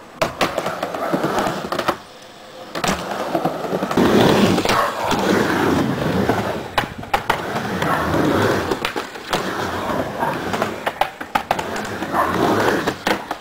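Skateboard wheels rolling back and forth on a mini ramp of quarter-inch hardboard coated with spar urethane, the rolling rising and falling with each pass, with several sharp clacks of the board striking the ramp.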